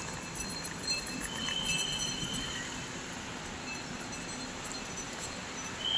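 Luggage trolleys and a wheeled suitcase rolling over paving, their wheels rattling steadily, over a steady hum of traffic.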